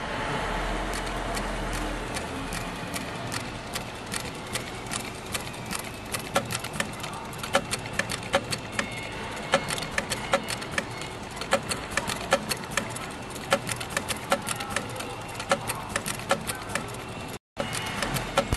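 Industrial heavy-duty sewing machine stitching: rapid, somewhat irregular sharp clicks, about four or five a second, over a steady hum. The sound drops out briefly near the end.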